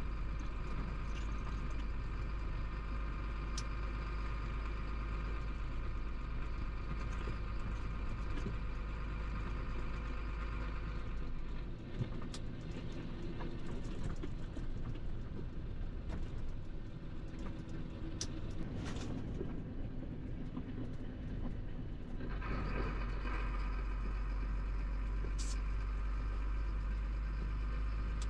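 Chenglong 375 truck running on the road, heard from inside the cab: a steady engine and road drone with a higher tonal hum. About twelve seconds in the drone and hum fall back for roughly ten seconds, then come back.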